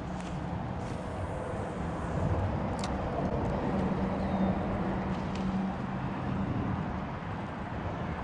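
An engine running steadily nearby, a continuous low hum under even noise.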